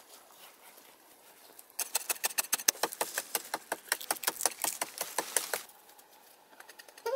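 A rapid run of sharp clicks, about nine a second, lasting nearly four seconds, then a few fainter clicks and a short squeak at the very end.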